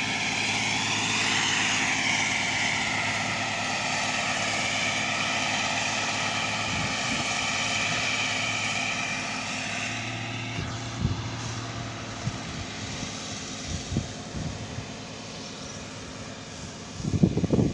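Plasser track-levelling and tamping machine working: a steady engine drone with high whining tones over it. The drone eases down about ten seconds in, then come scattered knocks and a burst of loud thuds near the end.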